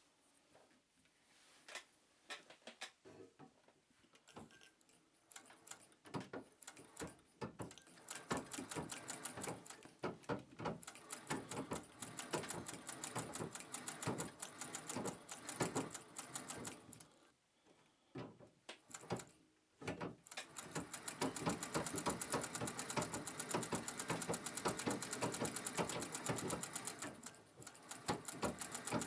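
Singer 201 sewing machine stitching through fabric. Its needle mechanism starts with slow, separate stitches and picks up to a fast, even run of ticks. It stops briefly just past the halfway point, then runs fast and steady again.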